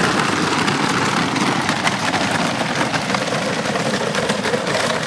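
Battery-powered toy ATV rolling over a gravel path: its hard plastic wheels make a dense, steady crunching and crackling, with a faint hum from its electric drive motor underneath.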